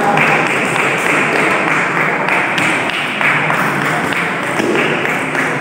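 Table tennis rally: a run of sharp clicks as the ball is hit back and forth off the paddles and bounces on the table, over a steady din of voices in the hall.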